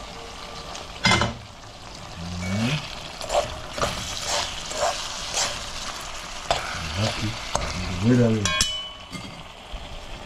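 Ackee and red herring sizzling steadily in a non-stick frying pan, with a utensil stirring and scraping against the pan in a string of short strokes.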